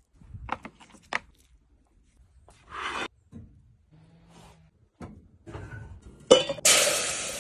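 Handling sounds of raw bacon-wrapped chicken drumsticks and a metal grill grate: a few short clicks and rustles and a brief rush of noise. Near the end, a loud click followed by a strong hiss that fades, from the gas grill's infrared burner.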